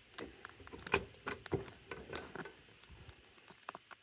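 Irregular light metallic clicks and clinks from small carburetor parts and hand tools being handled on a workbench.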